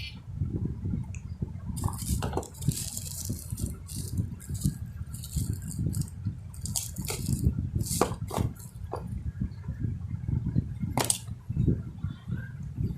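Packaging being handled for a phone unboxing: bursts of crinkly rustling over a few seconds, then a few sharp clicks and snaps, over a steady low rumble of handling noise on the microphone.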